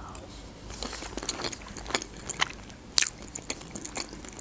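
Close-miked chewing of pelmeni in a creamy cheese sauce: irregular small mouth clicks, with one sharper click about three seconds in.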